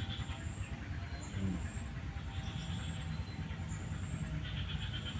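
Outdoor ambience at a swampy pool: a steady low rumble with a faint, high-pitched chirp repeating roughly once a second, and one short low call or grunt about a second and a half in.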